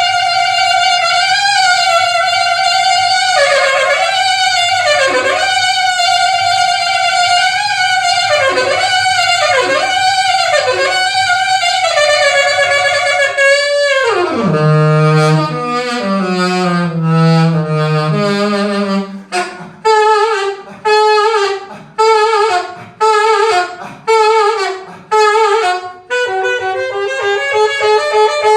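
Instrumental break of a song: a solo lead instrument with a reedy, sax-like tone holds high notes and bends them down and back. About halfway through it slides down in one long glide into low notes, then plays a run of short detached notes and settles on a held note near the end.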